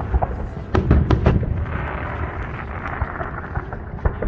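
Fireworks salute: a cluster of sharp bangs about a second in, then crackling, with another bang near the end, over a constant low rumble of the display.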